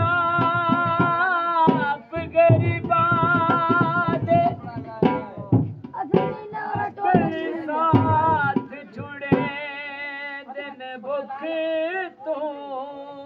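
A man sings with a wavering, ornamented voice, accompanied by drum beats on a rope-laced dhol. The drumming thins out about two-thirds of the way through, leaving the voice mostly on its own.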